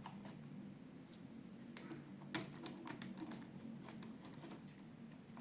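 Faint, scattered small clicks and taps from a model locomotive being handled and set onto the track rails, the loudest click about two and a half seconds in, over a faint steady low hum.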